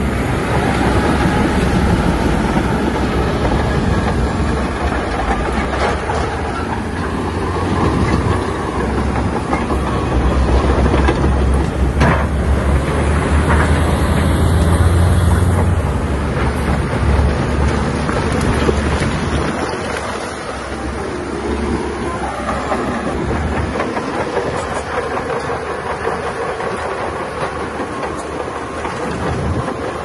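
Bulldozer at work: its diesel engine running hard under load while the steel crawler tracks clatter. The engine grows louder toward the middle, then eases off about two-thirds of the way through.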